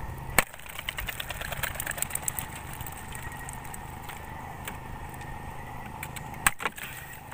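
A small engine running steadily, a constant hum with a faint steady whine above it, overlaid by scattered sharp clicks and knocks, the loudest just after the start and about six and a half seconds in.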